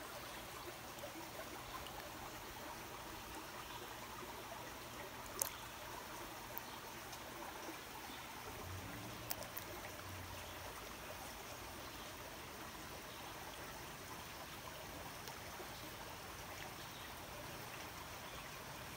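Faint, steady flow of a shallow mountain creek, with one sharp click about five seconds in and a few fainter ticks.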